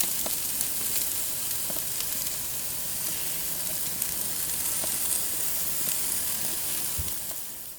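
Food sizzling on a hot grill: a steady hiss with scattered small pops and crackles, fading out near the end.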